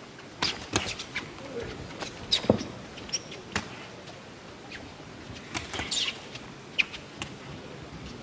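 Boxing bout in progress: an irregular scatter of sharp smacks and knocks from punches, gloves and footwork on the ring canvas, the loudest about two and a half seconds in, over steady arena background noise.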